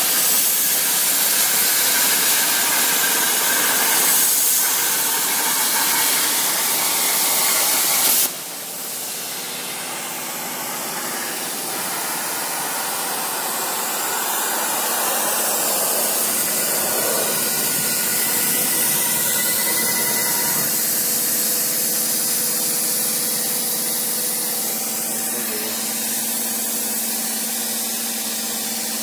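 CNC plasma cutting torch cutting steel plate with a loud steady hiss, which cuts off suddenly about eight seconds in as the cut ends. A quieter steady hiss with a faint hum carries on afterwards.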